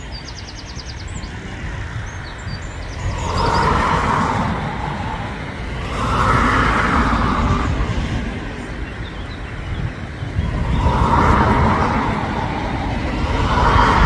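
Wind buffeting a phone's microphone as a continuous low rumble, with four swells of rushing noise that rise and fall, each lasting a second or two.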